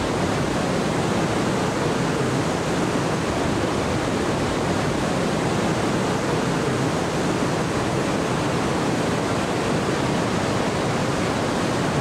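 Trümmelbach Falls, glacier meltwater plunging through its rock gorge inside the mountain: a steady, unbroken rush of falling water.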